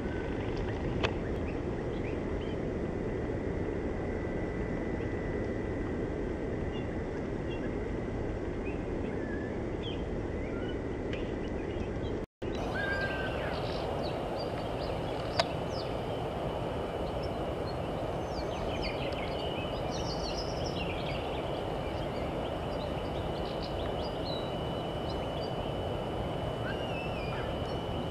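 Steady low outdoor background noise with a faint, steady high-pitched whine. Scattered short, high bird calls and chirps sound over it, more of them in the second half. The sound drops out for an instant about twelve seconds in.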